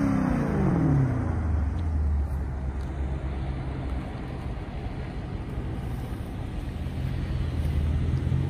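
Dodge Charger's Hemi V8 passing at speed, its exhaust note falling in pitch as it goes by in the first second, then a steady low rumble as the car rolls slowly back toward the microphone.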